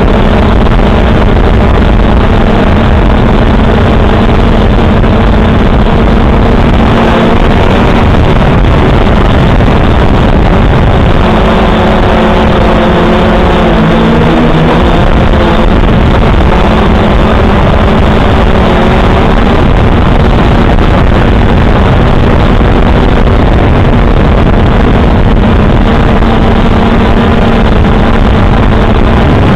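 Quadcopter drone's motors and propellers buzzing loudly and steadily, heard through its own onboard camera's microphone. The pitch wavers and shifts for a few seconds around the middle.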